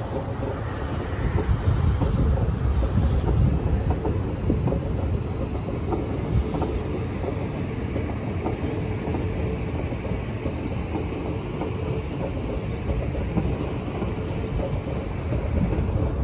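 HCMT electric suburban train running past: a steady rumble with the wheels clicking over the track and a faint steady hum.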